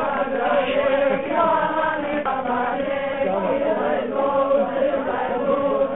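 A group of voices chanting together in long held notes.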